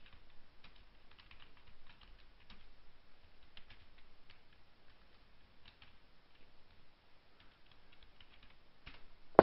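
Faint, irregular keystrokes on a computer keyboard as text is typed.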